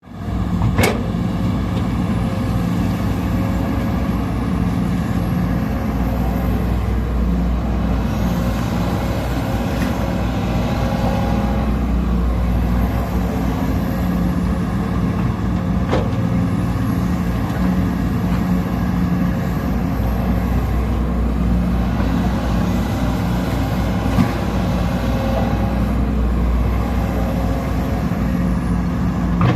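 Sumitomo SH210 excavator's diesel engine running steadily at a constant pitch while the machine works, with three sharp knocks, the loudest about a second in.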